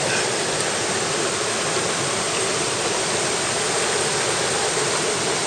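Mountain stream water rushing over rocks, a steady, unbroken rush.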